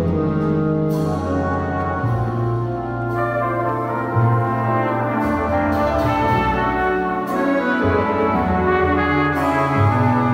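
Jazz orchestra playing, with the brass section to the fore in held chords over a low bass line.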